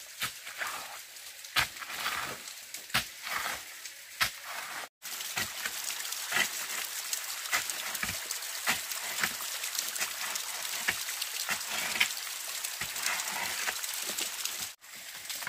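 A hand digging tool chopping and scraping into wet soil and small stones, with repeated short strikes at an irregular pace, over a steady background hiss.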